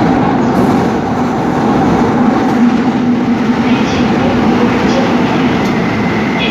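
Seoul Subway Line 5 train running, a steady, loud noise of wheels on rails with a low, even hum.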